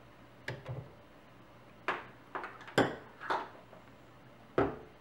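Knocks and clinks of a stick blender's metal shaft against its blending cup and splash lid as it is pulled out and set down, its motor off: about seven irregular knocks, the loudest a little under three seconds in and another near the end.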